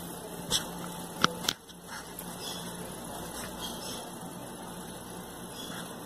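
Steady background noise with a faint low hum, broken by three short sharp clicks in the first second and a half, the loudest about a second and a quarter in.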